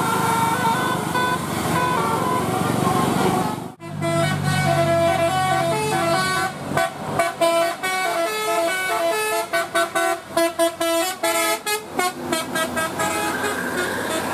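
Bus telolet horn, a multi-trumpet musical air horn, playing a tune of stepped notes. It breaks off for a moment a little under four seconds in, then plays another tune with a run of quick short toots in the second half.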